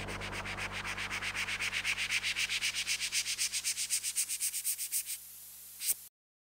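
Toothbrush scrubbing on teeth, picked up by a microphone inside the toothbrush, at about seven strokes a second over a low steady hum. The sound is filtered in real time so that its emphasis sweeps steadily from lower to higher pitch, growing brighter. The brushing stops a little after five seconds, there is a brief knock, and the sound cuts off near the end.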